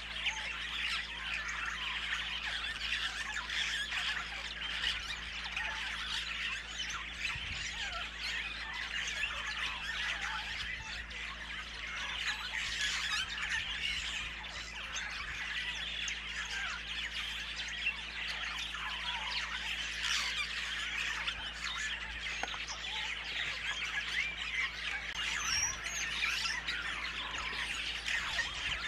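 Dense chorus of many birds chirping and squawking without pause, the calls overlapping into a steady chatter.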